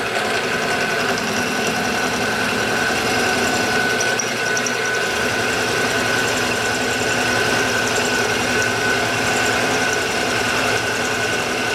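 PM-727M milling machine spindle running at 600 rpm while an end mill side-cuts the edge of a metal block, a steady whine with a constant high tone.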